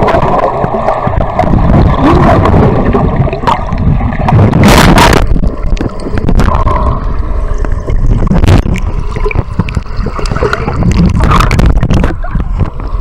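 Splashing and sloshing water with heavy rumbling buffeting on the microphone, broken by scattered knocks and clicks.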